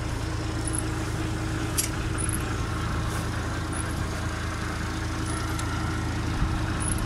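Feed-chopping machine running steadily as it chops forage, a continuous even hum with a steady tone.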